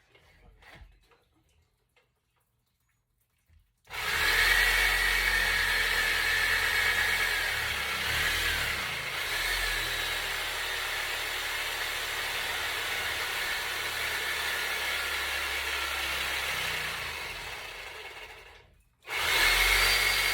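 A power tool cutting into a cast iron drain pipe. It starts about four seconds in and runs steadily with a high whine, dies away and stops briefly near the end, then starts again.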